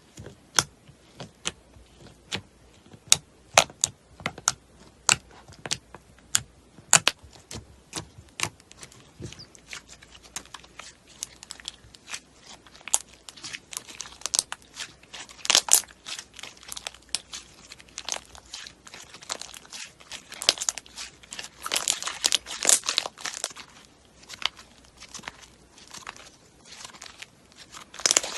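Slime being squeezed and stretched by hand, giving irregular sticky popping and crackling clicks that come thicker and louder past the middle.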